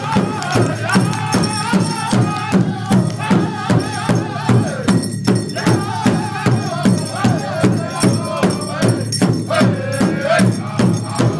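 Ojibwe/Odawa hand-drum song: hand drums struck in a steady, even beat, a little over two strokes a second, under group singing, with a long held note near the end.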